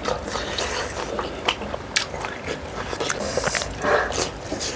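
Two people biting into fried chicken and chewing it close to the microphone, with many short, wet mouth clicks and smacks.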